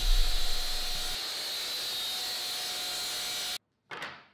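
Makita cordless sliding miter saw running with a high whine, its blade cutting a shallow depth-stopped groove into plywood, heavier in the first second. It cuts off suddenly about three and a half seconds in, followed near the end by a short sound that starts sharply and fades.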